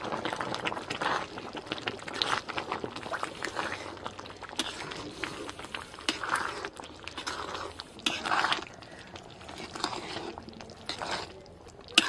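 Matar paneer gravy simmering in a pot, with many irregular small pops and clicks.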